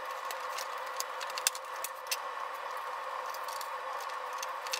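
Light plastic clicks and taps as a Kawasaki sport bike's lower fairing panel is pressed back into place. The sharpest click comes about a second and a half in, over a steady hiss.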